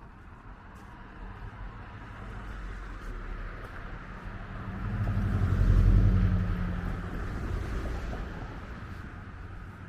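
A motor vehicle passing by in the street: engine hum and road noise grow to their loudest about six seconds in, then fade away.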